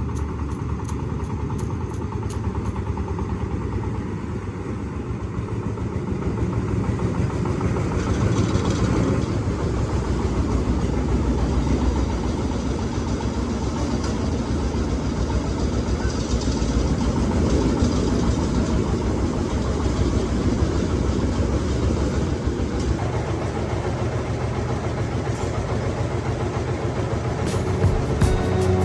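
An engine running steadily, a low rumble with fast, even pulsing, with a few sharp ticks near the end.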